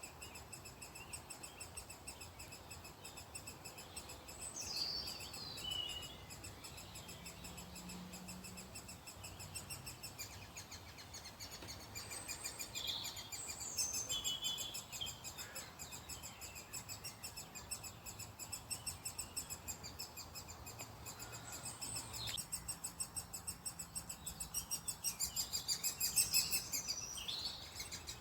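Great spotted woodpecker chicks calling insistently from inside the nest hole in the tree trunk: a continuous rapid run of high chirps, the begging of nestlings waiting to be fed. The chirping grows louder in the last several seconds, and a few separate calls from other birds come in at intervals.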